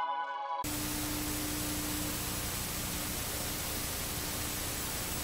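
Soft ambient music stops abruptly about half a second in. It gives way to the steady hiss of television static, white noise with a faint low hum under it.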